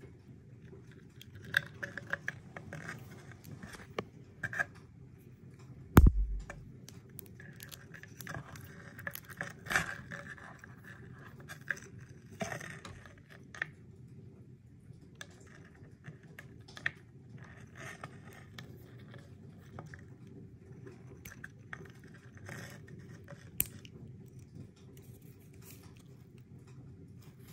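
Handling of a metal hinge bracelet: scattered small clicks and light scrapes as its hinge is opened and it is put on, with one loud thump about six seconds in.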